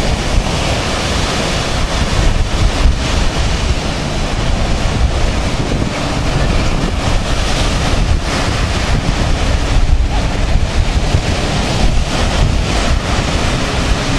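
Ocean surf breaking and washing up the beach, with strong wind buffeting the microphone in a steady low rumble.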